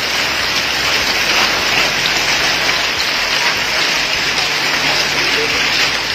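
Heavy rain mixed with hail pelting pavement and parked vehicles: a dense, steady hiss of falling water and ice.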